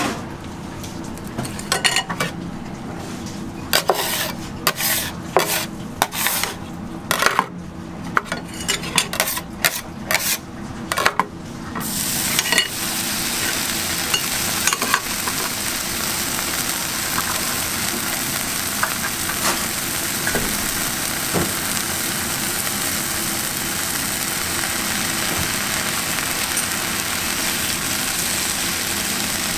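A metal spatula scrapes and knocks on a steel flat-top griddle in a series of sharp, irregular strokes. About twelve seconds in, a strip of bacon laid on the hot griddle starts a steady sizzle, which runs on as it fries.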